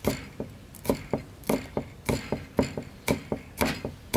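Cleaver chopping garlic and red chili on a round wooden chopping board: a steady run of knocks, about three or four a second, alternating louder and softer strokes.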